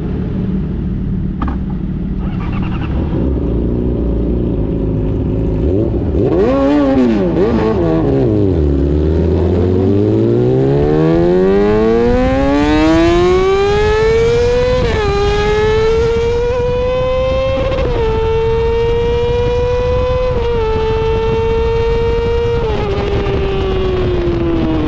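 Yamaha R6 inline-four sportbike engine breathing through an SC-Project titanium exhaust. It idles, blips the throttle once, then revs up in a long rising climb, with several sudden pitch drops as it shifts up through the gears. Near the end the pitch falls away as the throttle eases off.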